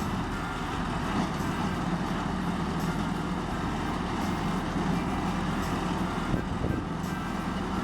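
Heavy diesel engine of an asphalt paver running steadily with a low, even rumble.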